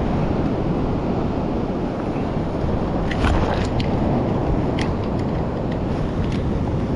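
Steady wind noise buffeting the microphone with beach surf behind it, plus a few faint clicks a little past the middle.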